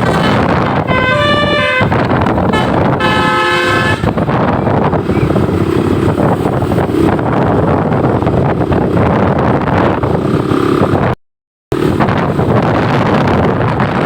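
Bus 'basuri' telolet horn playing a quick melody of stepped, sustained notes for about four seconds. A steady, loud rush of vehicle noise with faint horn tones follows, broken by a half-second silence about eleven seconds in.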